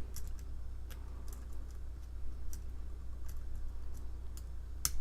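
Light, scattered clicks of a lock pick and tension wrench working the small pins of a challenge padlock, about one a second, with the loudest click just before the end, over a steady low hum.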